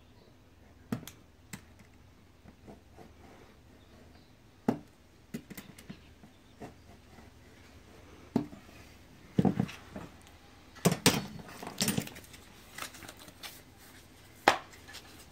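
Irregular clicks, taps and knocks of floor tiles being handled, cut and fitted into place, with a run of louder knocks about nine to twelve seconds in and one sharp knock near the end.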